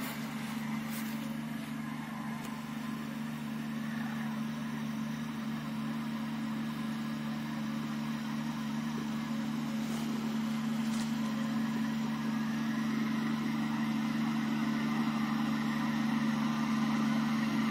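Engine of a Shaktiman boom sprayer running at a steady speed with an even hum, slowly growing louder as the machine drives closer.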